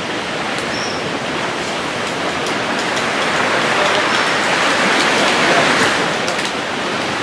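Sea waves washing on a beach: a steady rushing noise that swells about four to six seconds in and then eases.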